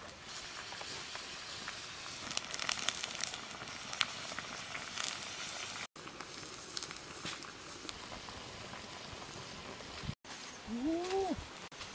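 Wood fire crackling under a pan of mussels boiling in water, a steady hiss dotted with many small clicks and pops. Near the end an animal gives one short call that rises and falls in pitch.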